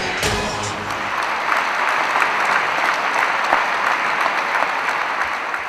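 Large audience applauding, dense steady clapping throughout.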